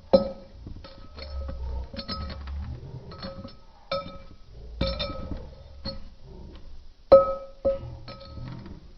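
Background music of plucked-string notes, like a ukulele, played as a light melody with sharp, ringing note onsets.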